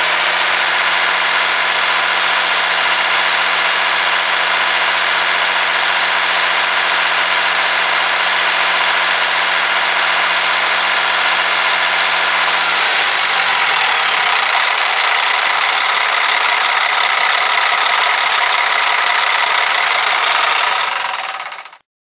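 Caterpillar 3176 inline-six diesel truck engine idling steadily, heard up close in the engine bay. Its low hum drops away about two-thirds of the way through, and the sound fades out just before the end.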